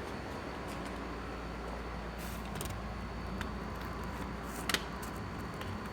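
Steady low rumble of background noise with a few light clicks, the sharpest about three-quarters of the way through.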